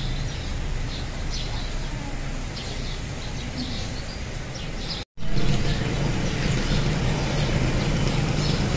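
Vehicle engine running amid traffic noise, with a few short high chirps in the first few seconds. The sound cuts out briefly about five seconds in, and the low engine hum is louder after it.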